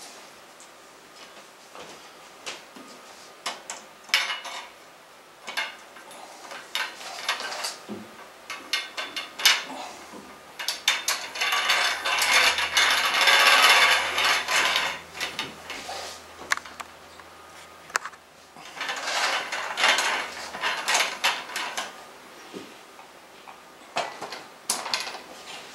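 Wire shelf of a metal shelving unit being fitted onto its posts and set into the notches: repeated metal clicks and rattles, with two longer stretches of dense rattling and scraping, one around the middle and one a few seconds later.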